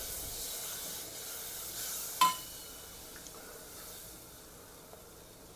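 Water just added to a hot browning roux, sizzling in the pan and fading steadily. About two seconds in, a single sharp clink of a utensil against the pan rings briefly.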